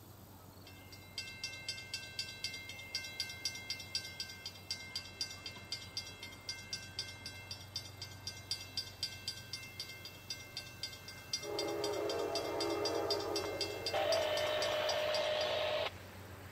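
A bell rings steadily at about three strikes a second as a train approaches. Near the end, the approaching Amtrak train's locomotive horn sounds for about four seconds, growing louder partway through and cutting off sharply.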